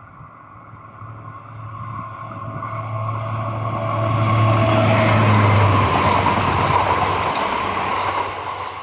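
AGC diesel multiple unit approaching and passing close by at speed. Its engine hum grows louder and then cuts away sharply as the cab goes past, while wheel and rail noise swells to a peak and then eases off as the train moves away.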